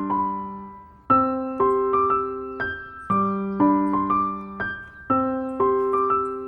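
Background music: a gentle piano melody of struck notes that ring and fade, a new note or chord about every half second.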